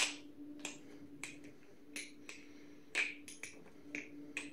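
Butterfly knife, freshly tuned with KPL lube, being flipped: about a dozen sharp, irregularly spaced clicks as the handles swing around and clack against each other. The loudest click comes right at the start.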